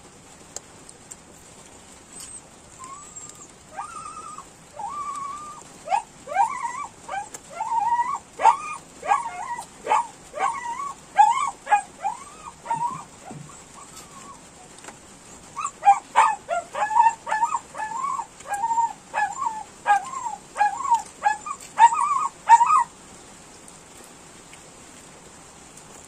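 A dog whimpering and yipping in runs of short, high cries, two to three a second, with a short pause in the middle.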